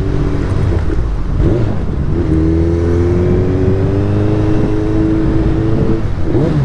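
Suzuki Hayabusa's inline-four engine pulling under throttle in traffic, its exhaust note rising slowly in pitch as the bike gathers speed. About six seconds in the throttle closes and the note breaks into a short rev.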